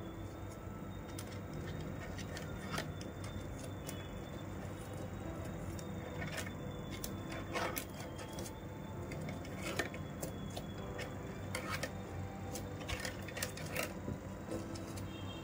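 Irregular clicks and taps of PE plastic rattan strands being handled and woven by hand, a few strokes sharper than the rest.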